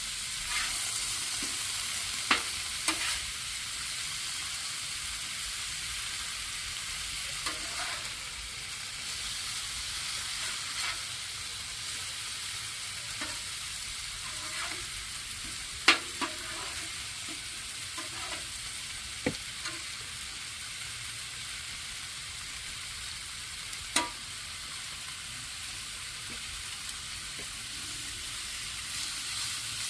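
Mushrooms, peppers and onions sautéing in butter, a steady sizzle, with a few sharp clicks of a utensil on the pan as they are stirred; the loudest click comes about halfway through.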